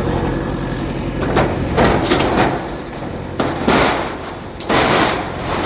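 Bulldozer's diesel engine running steadily while it breaks up a shop structure: a small knock, then three loud crashing, scraping bursts about a second and a half apart as the structure gives way.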